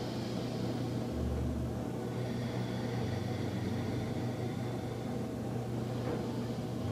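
Steady low electrical or mechanical hum, with a faint hiss above it.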